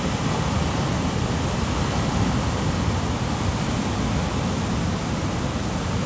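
Heavy ocean surf: a steady rush of churning white water.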